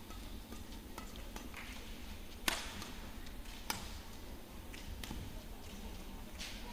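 Badminton rally: rackets striking a shuttlecock, sharp hits coming about once a second, the loudest about two and a half seconds in, over a steady arena background.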